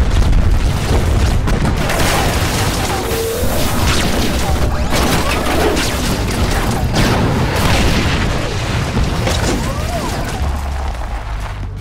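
Battle sound effects: deep explosion booms and gunfire over a continuous low rumble, fading slightly toward the end.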